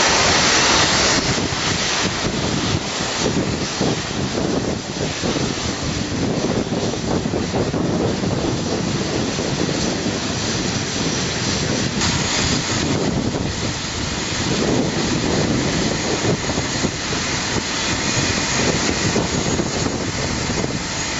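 Loud, steady rushing jet noise from the Airbus A380's four engines, mixed with wind buffeting the microphone; it is loudest in the first second.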